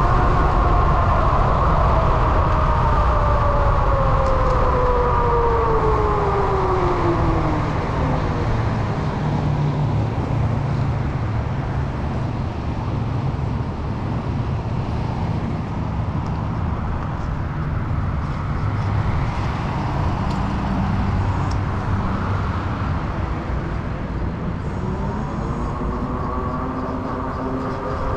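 Electric hub motor of an Ariel Rider X-Class e-bike whining, its pitch falling steadily over the first several seconds as the bike slows, then rising again near the end as it speeds up. A steady low rumble of wind and road runs underneath throughout.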